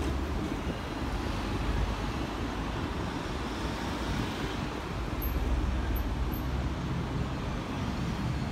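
City street traffic: a steady low rumble of road vehicles, with a double-decker tram and cars passing.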